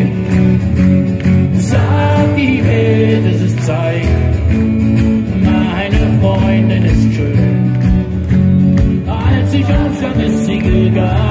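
Live acoustic set: two acoustic guitars strummed and picked while a man sings into a microphone. A low thud about once a second joins about four seconds in, keeping the beat.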